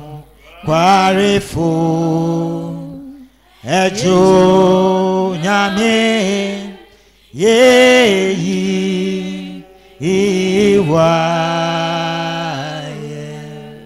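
Worship singing: a voice sings four long phrases in a chant-like style, with held and gliding notes and short breaks between them. The last phrase fades out near the end.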